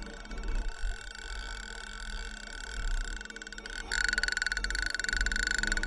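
Live experimental electronic noise from homemade electronic instruments and devices: a steady high tone laced with fast buzzing pulses over a low hum, turning sharply louder and brighter about four seconds in.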